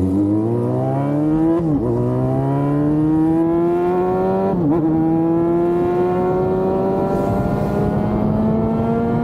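Yamaha FZ6 Fazer 600's inline-four engine accelerating hard, its pitch climbing, with two quick upshifts about two and five seconds in, then pulling on in a higher gear with a slower, steady rise.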